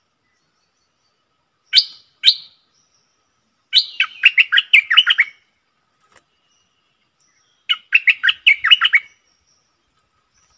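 Stripe-throated bulbul singing: two sharp chirps about two seconds in, then two short bubbly phrases of quick down-slurred notes, one around four seconds in and one near eight seconds.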